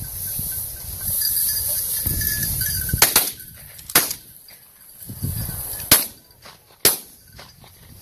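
Shotgun shots fired at a flushed game bird by several hunters: a volley of about four sharp shots, starting about three seconds in and spread over roughly four seconds.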